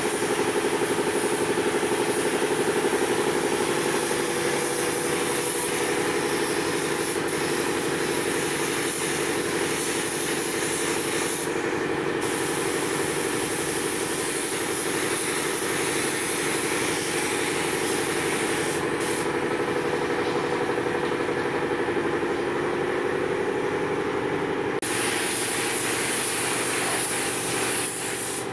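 Air-fed paint spray gun hissing as it atomises paint onto a bumper cover, cutting out briefly near the middle and again for several seconds later on, over a steady machine hum.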